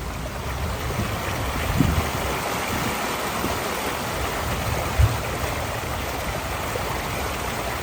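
Floodwater rushing steadily, with a low rumble underneath and two short dull thumps, one about two seconds in and one about five seconds in.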